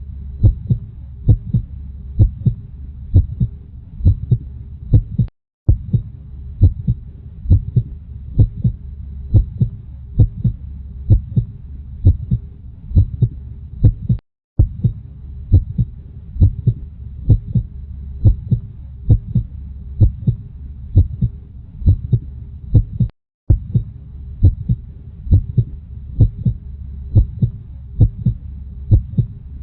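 Heartbeat, a steady run of low thumps at about two a second over a constant low hum. It breaks off to silence for an instant three times, about every nine seconds.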